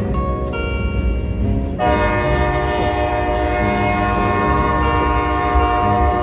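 Diesel locomotive air horn, leading an orange EMD SD40-2, blowing a chord: short broken blasts at first, then one long held blast from about two seconds in.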